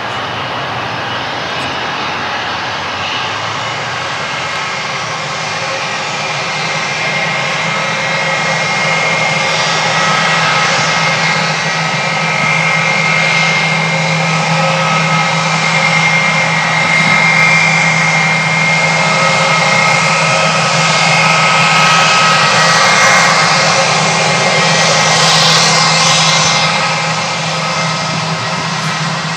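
Airbus A320-family airliner's twin jet engines running at low thrust as it taxis past: a steady whine over a low hum, growing louder as it comes closer and easing off near the end.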